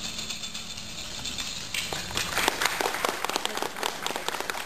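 Audience clapping, picking up into dense, irregular applause about two seconds in.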